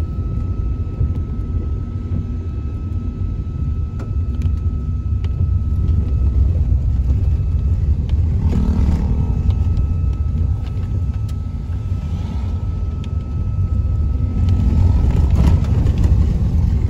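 Car driving on a wet road, heard from inside the cabin: a steady low rumble of engine and tyres. The rumble swells twice with added hiss, about halfway through and near the end.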